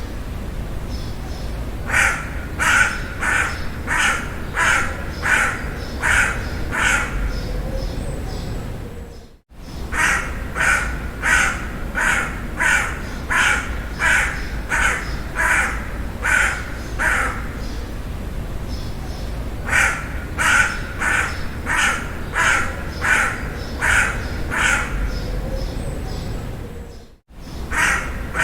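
A crow cawing in runs of about seven to ten caws, roughly one and a half a second, with pauses of a couple of seconds between runs, over a steady low background rumble. The sound cuts out briefly twice.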